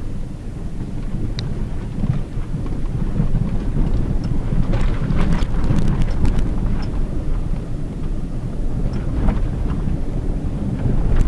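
Cabin sound of a Hyundai Tucson JM with its 2.0-litre petrol four-cylinder driving along a rough country road: a steady low rumble of engine and tyres. A burst of clicks and rattles comes about five to six seconds in, with a few single ticks elsewhere.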